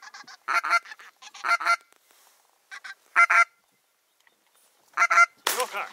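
Geese honking: about six short, loud calls in small groups with pauses between them. A loud sharp crack, a shotgun shot, comes right at the end.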